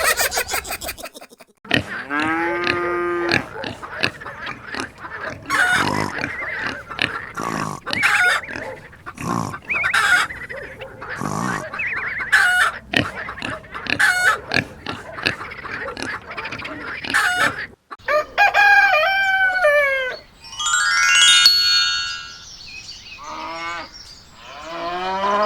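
Animal calls over background music, with a run of short knocks in the first part and several pitched, gliding calls near the end.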